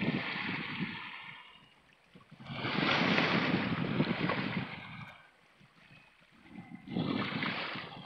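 Small sea waves washing over shoreline rocks and draining back, in three surges a few seconds apart; the biggest wash comes about two and a half seconds in.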